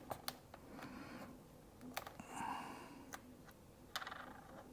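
Faint, scattered clicks and taps of small laptop parts being pressed and handled, a few sharp clicks spaced irregularly, with soft rustling between them.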